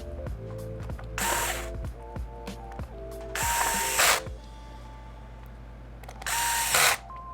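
Small electric screwdriver driving the Chromebook's bottom-cover screws back in, in three short bursts of under a second each, with background music throughout.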